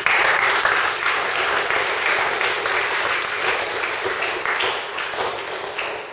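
Audience applauding, loud at first and slowly dying away near the end.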